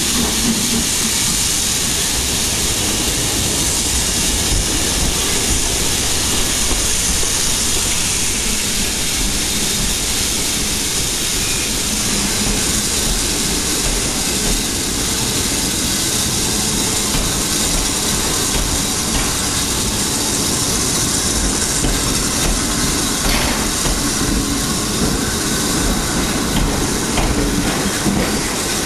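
BR Standard Class 9F 2-10-0 steam locomotive arriving with its train: a steady, unbroken mix of hiss and low rumble.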